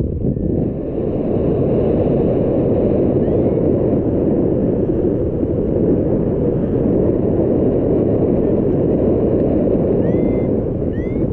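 Steady, loud wind rush buffeting the microphone as the paraglider flies through the air. A few faint short chirps are heard, once about three seconds in and twice near the end.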